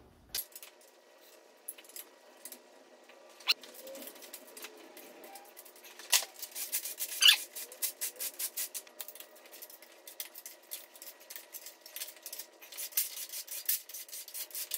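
Tool clicking in quick runs as cylinder-head bolts are loosened on a 4.8-litre LS V8: a ratchet wrench working off the small and large head bolts, with a few sharper single clicks before the runs begin about six seconds in.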